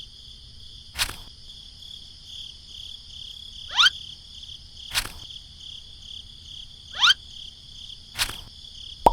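Steady, pulsing high-pitched buzz of insects, cicadas or crickets, throughout. Over it come three short rising chirps about three seconds apart, each followed about a second later by a sharp click.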